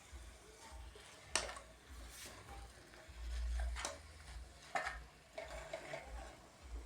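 A spoon stirring beef and vegetables in a pot. Three sharp knocks of the spoon against the pot ring out, the loudest about a second and a half in.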